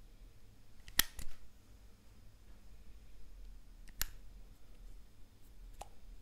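Sharp plastic clicks as the applicator wand of a small plastic liquid-eyeliner bottle knocks against and slots into the bottle's neck: two close together about a second in, one about four seconds in, and a fainter one near the end.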